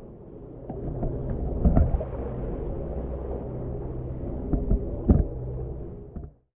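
Boat engine running steadily under a wash of water noise, with a few short sharp knocks or splashes. It cuts off suddenly near the end.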